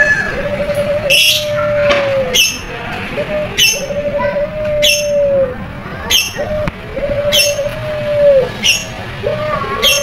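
Barbary dove (burung puter) cooing: a short note followed by a long drawn-out coo that drops in pitch at its end, repeated over and over. Sharp high chirps recur about every second and a quarter over the coos.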